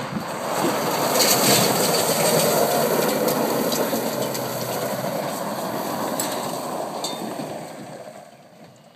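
Pickup truck drifting on a loose gravel lot: a loud rumble of spinning, sliding tyres on gravel, with scattered ticks of flying stones. It swells about a second in and fades near the end as the truck moves off.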